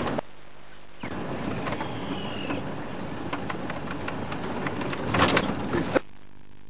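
Open game-drive vehicle running along a rough dirt track, with many rattles and knocks from the bumps. The sound drops out briefly near the start and again near the end.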